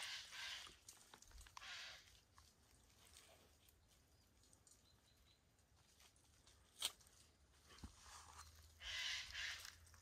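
Footsteps in fallen autumn leaves: a few rustling steps near the start and again near the end, with a quiet stretch between them and one sharp click about seven seconds in.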